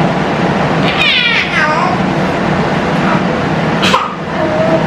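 A young child's high-pitched squeal about a second in, falling in pitch, then a short sharp cry near the end followed by a brief held note, over a steady background hiss.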